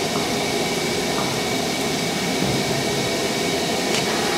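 Steady mechanical drone with a hiss and a faint high-pitched whine, as from a machine running in the workshop.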